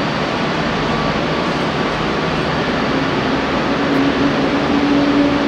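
Steady, loud industrial machine noise, with a low hum coming in about halfway through and holding.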